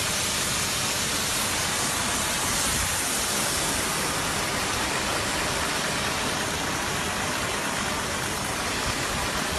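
Disinfectant sprayer running with a steady, unbroken hiss of pressurised spray and a low mechanical rumble underneath.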